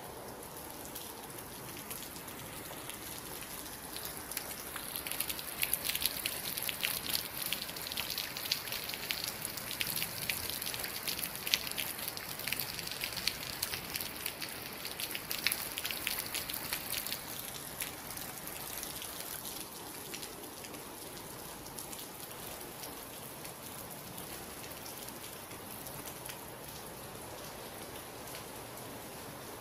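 Rain falling, many close-set drop hits over a steady hiss. It grows heavier about four seconds in and eases back past the middle.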